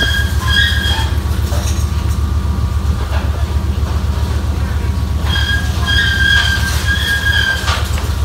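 Steady low rumble of a scallop dragger's engine and machinery, heard from its deck. Short, high-pitched squeals come in a run near the start and again from about five seconds in.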